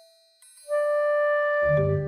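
Instrumental background music. A held note fades out into a brief near-silent gap, a new sustained melody note starts about two-thirds of a second in, and low bass notes join near the end.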